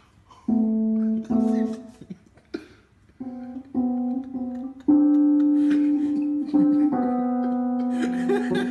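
Keyboard instrument playing held notes and chords in an irregular, unmelodic sequence. The notes start about half a second in and each lasts from a fraction of a second to about two seconds.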